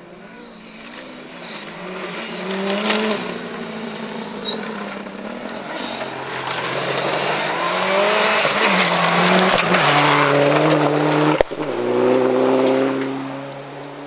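Rally car engine at full throttle coming closer, its note climbing and dropping back with each gear change as it passes close by, then fading away. There is a single sharp crack between shifts about eleven seconds in.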